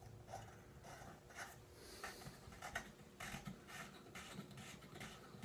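Faint handling noise: scattered light taps and scrapes as a threaded rod is set into a small wooden vise, with one slightly louder knock near the middle.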